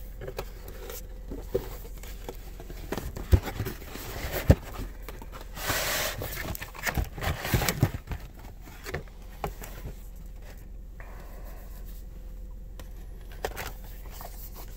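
Cardboard miniature-kit box and its slipcover being handled and opened: scattered taps and knocks, with a rustle of sliding cardboard about six seconds in.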